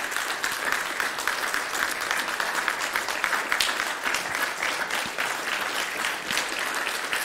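A church congregation applauding steadily, many hands clapping at once, in thanks to the veterans standing among them.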